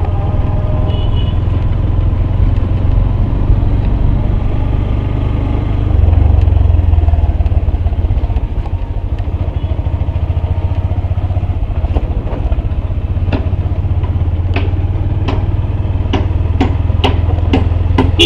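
Small vehicle engine running steadily, heard from on board as it drives along a road. In the last few seconds a quickening series of sharp clicks or rattles rides over the engine.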